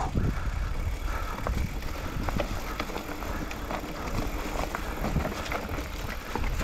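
Mountain bike rolling down a rocky dirt trail: tyres crunching over stones and dry leaves, with frequent short clicks and rattles from the bike, over a steady low rumble.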